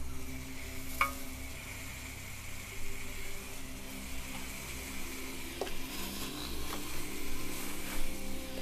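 Clothes iron pressing pleats into gingham fabric: a steady soft hiss as it slides and steams, with a couple of light clicks, about a second in and again near the middle.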